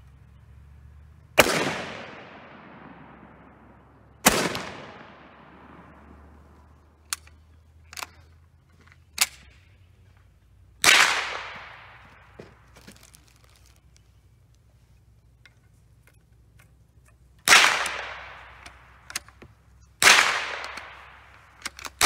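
Rifle shots on an outdoor range: five loud reports, each trailing off in a long echo, with several fainter sharp cracks in between. Among them is an 1866 Chassepot needle-fire rifle firing handmade paper cartridges; the other shots come from other shooters' guns.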